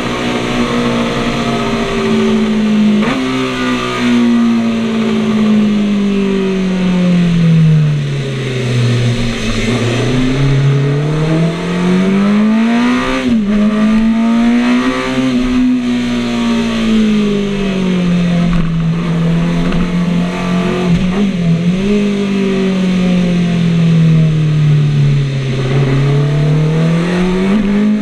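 Classic motorcycle engine heard from on board at speed, over a steady hiss. Its note swings repeatedly as the rider closes and opens the throttle: it sinks low about a third of the way in and again near the end, with a shallower dip in the middle, and climbs back each time.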